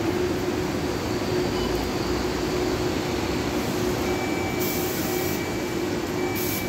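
Yutong E12DD battery-electric double-decker bus standing with a steady electric hum. About four and a half seconds in, its front doors close with a short hiss of air, and a second brief hiss comes near the end.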